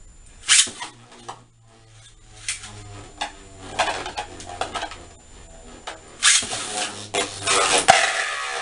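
Beyblade Burst spinning tops launched into a plastic Beyblade Burst stadium, with one sharp loud crack about half a second in. After that comes the rattling and clattering of the tops spinning, scraping and colliding against each other and the plastic bowl, loudest in dense stretches near the end.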